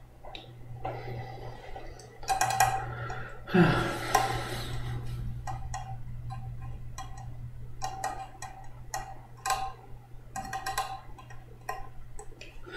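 Scattered small clicks and light knocks from objects handled at a desk, with two brief rustling noises about two and four seconds in, over a steady low electrical hum.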